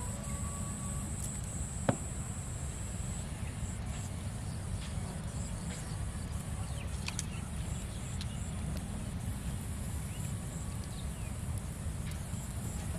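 Outdoor ambience: a steady low rumble, with a thin high whine that stops about three seconds in and a single sharp click about two seconds in.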